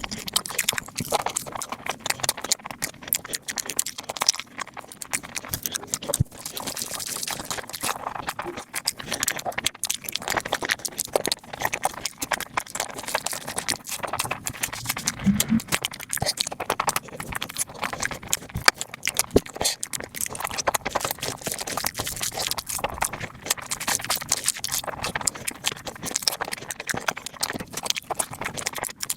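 Close-miked eating sounds: people chewing and crunching food fast, a dense stream of wet clicks and crackles.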